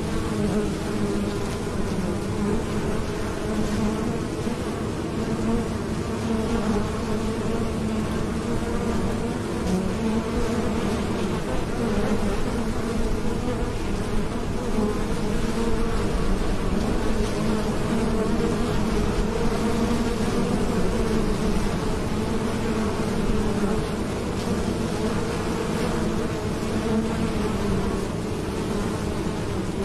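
Honeybees buzzing at a hive entrance as many fly in and out. The combined wingbeats make a steady, dense hum.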